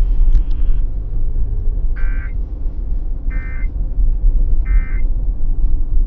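Three short squawks of EAS end-of-message data, about a second apart, coming through a car's FM radio. They mark the close of the Severe Thunderstorm Warning broadcast. A steady low rumble of the car's cabin runs underneath.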